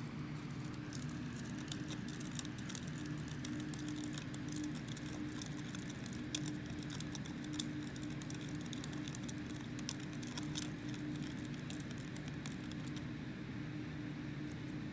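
Plastic spoon stirring liquid in a small plastic cup, with light irregular clicks and taps of the spoon against the cup, over a steady low hum. The clicking stops shortly before the end.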